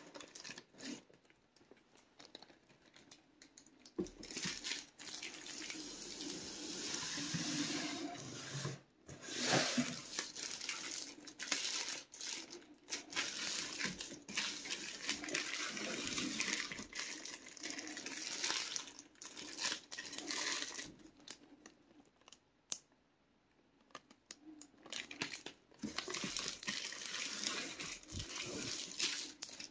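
Clear plastic shrink wrap crinkling and tearing as it is handled and pulled off a bundle of transmission fluid bottles. The rustling comes in irregular spells, with a brief quiet gap about three quarters of the way through.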